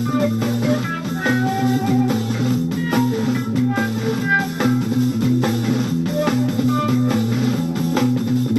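Rock band playing an instrumental jam: a busy electric bass line moving from note to note under electric guitar and steady drums.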